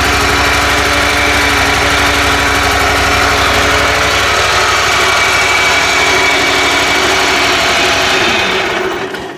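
Riding mower's 27 hp Kohler V-twin engine running steadily, exhausting through a car muffler. Near the end it is shut off and winds down to a stop.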